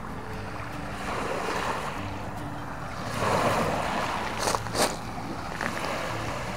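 Small waves washing onto the shore, swelling about a second in and more strongly around three seconds in, over a faint low hum. Two sharp clicks come close together just after the second swell.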